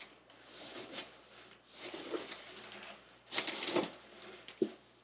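Faint rustling of a cardboard box's paper liner and packaging as produce is rummaged for and lifted out by hand, with a louder rustle about three and a half seconds in and a light knock near the end.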